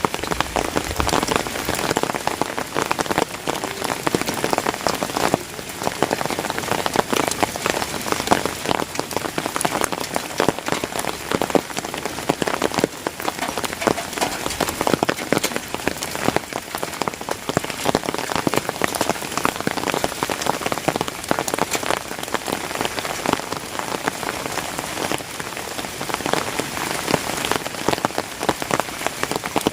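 Heavy rain falling steadily, a dense hiss of countless drops pattering on surfaces.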